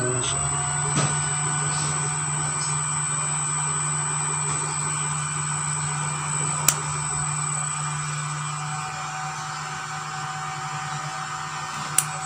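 Three-phase induction motor fed by a variable frequency drive, coming up to speed right at the start and then running steadily with a low hum and a higher whine. Two sharp clicks of a rocker switch, about six and a half seconds in and near the end.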